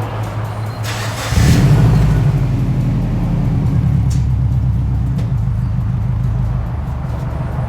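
Subaru Forester XT's turbocharged flat-four running through an HKS Hi-Power muffler, with a low exhaust rumble. About a second and a half in it gets clearly louder as the engine is given throttle, then holds at that level.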